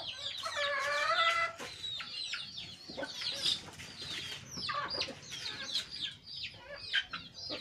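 Chickens clucking and calling, with quick high chirps throughout and one longer wavering call from about half a second in, lasting about a second.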